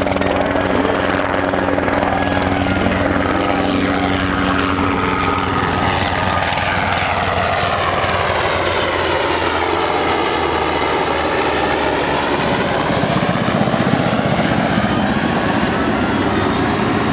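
UH-60J Black Hawk rescue helicopter flying past, its rotor and twin turboshaft engines running loud and steady. The tone sweeps down and back up as it passes closest, about ten seconds in.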